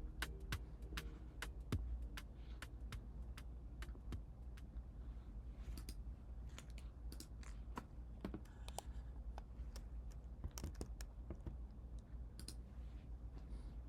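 Scattered, irregular clicks from computer keys or buttons, over a low steady hum.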